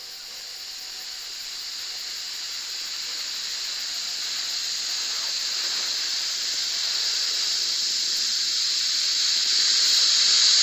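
A steady high-pitched hiss, like escaping steam, growing steadily louder throughout.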